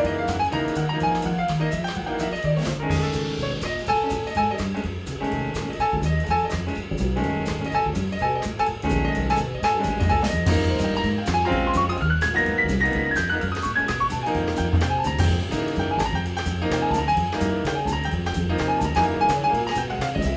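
Live jazz quintet playing, with piano, double bass and drum kit heard most: fast runs of notes climb and fall over a busy bass line and steady cymbal ticks.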